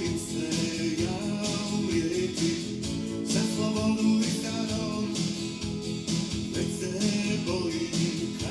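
Background music from a song, playing steadily.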